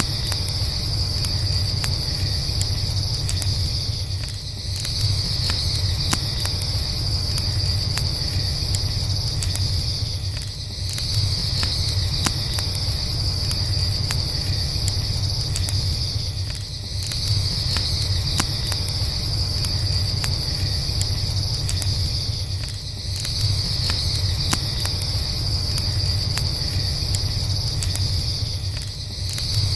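Night crickets chirring in long trains that break off briefly about every six seconds, over a steady low rumble and scattered crackles of a campfire.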